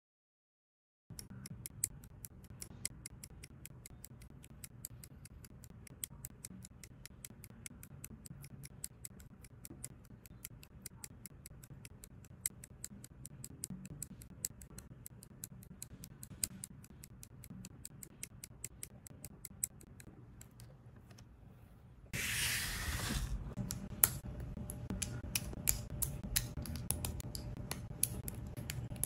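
Side cutters snipping plastic model-kit parts off the sprue: a long run of sharp clicks, several a second, starting about a second in. About three-quarters of the way in it gets louder, with a brief rustle and more plastic clicks as the parts are handled and pressed together.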